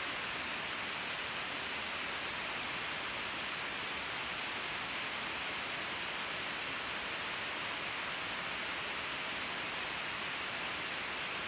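Steady, even hiss with no distinct strokes or knocks.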